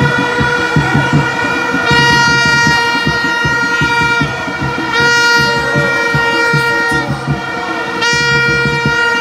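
Horns blown by fans in a stadium crowd: a loud held horn note, with a brighter blast starting about every three seconds, over crowd noise and a rhythmic low beat.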